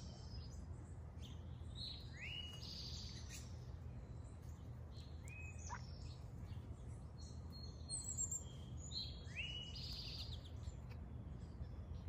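Songbirds chirping and calling, with a similar sweeping phrase twice, a few seconds apart, and scattered short chirps, over a steady low background rumble.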